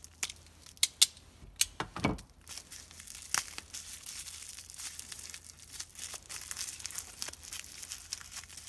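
Plastic bubble wrap and Scotch tape being pulled apart and crinkled by hand: a few sharp crackles and a low thump in the first two seconds, then continuous crinkling and tearing of the wrap.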